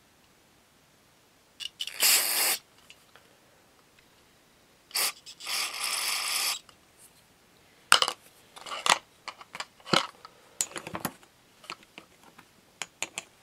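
Two hissing bursts of aerosol cleaner sprayed through a straw into a small-engine carburetor: a short one about two seconds in, and a longer one of about a second and a half after about five seconds. Then a run of light clinks and taps as small metal carburetor parts and pliers knock against the carburetor body and a plastic cup.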